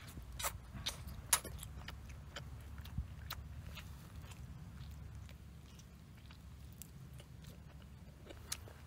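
A person chewing and tearing at grilled chicken: irregular sharp clicks and crunches from biting and pulling the meat, more of them in the first few seconds, over a low steady rumble.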